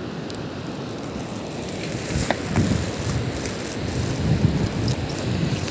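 Wind rumbling on the phone microphone over a steady rushing noise, swelling in the middle, with a few sharp clicks about two seconds in.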